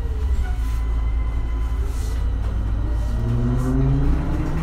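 MAN Lion's City Hybrid city bus under way, its drive whine falling at the start as the bus slows, then rising from about three seconds in as it picks up speed, over a steady low rumble.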